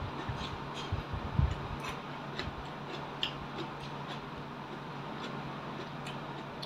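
Eating and handling sounds of a fruit rujak: scattered small clicks from chewing crunchy fruit and picking up fruit slices, with a few soft low knocks about a second in, over a steady low hum.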